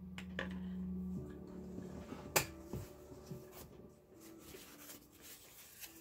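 Light clicks and taps of a stirring stick and small glass jars being handled on a tabletop, with one sharp tap about two and a half seconds in as the loudest. Soft background music plays under it.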